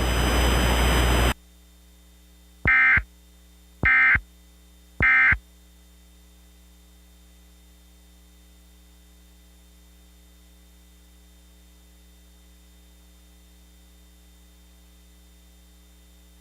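Static hiss that cuts off about a second in, followed by three short screeching bursts of Emergency Alert System SAME digital data tones, about a second apart: the end-of-message (NNNN) signal that closes an EAS alert. A faint steady electrical hum runs beneath.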